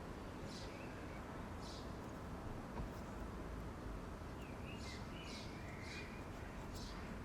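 Faint bird chirps over a steady low background hiss: scattered short high calls, with a brief warbling phrase about five seconds in.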